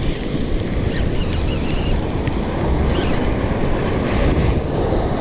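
Spinning fishing reel cranked steadily to wind in a hooked fish, over a constant rumble of wind and surf.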